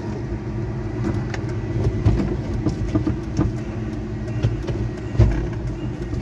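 Car engine and road noise heard from inside the cabin as the car creeps along at low speed, with scattered light clicks and a single thump about five seconds in.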